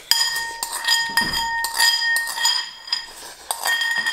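Metal spoon clinking and scraping around the inside of a glazed ceramic bowl, about two or three strikes a second, the bowl ringing after each hit as the last of the rice is scraped out.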